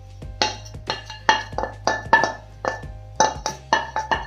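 A metal spoon clinking and scraping against a steel pan as cooked gravy is ladled out. It makes repeated ringing clinks, roughly three a second.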